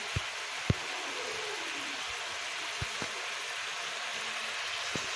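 Butter cooking down into ghee in a pan: a steady sizzling hiss with a few sharp pops, the loudest about two-thirds of a second in. The buttermilk still in the butter is boiling off.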